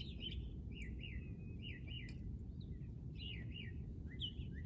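Birds singing in short, repeated falling chirps, over a low, steady background rumble.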